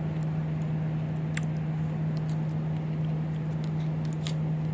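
Steady low hum of an air conditioner running, with a few faint light clicks over it.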